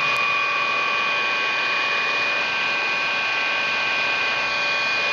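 Electric heat gun running steadily: its blower fan rushes hot air out of the nozzle, with a steady whine from the fan motor.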